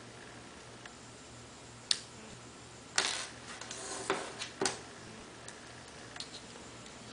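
Small sharp clicks and a brief scrape as an iPhone 4's SIM tray is ejected with a removal tool and slid out. One click comes about two seconds in, then a cluster of clicks with a short scrape, followed by a few single clicks and faint ticks.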